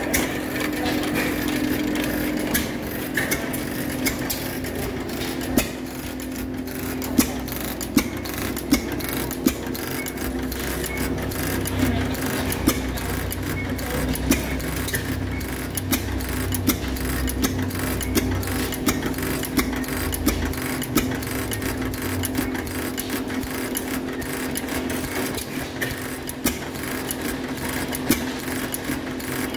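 Hit-and-miss stationary gas engines running: a rapid, steady clatter of valve gear and igniter clicks over a low hum, with sharp pops from firing strokes, several in a row between about 5 and 15 seconds in.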